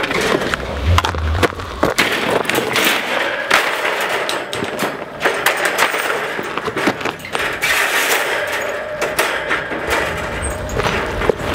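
Folding metal wire dog crate rattling and clanking as it is handled and unfolded, with many sharp irregular clanks and knocks.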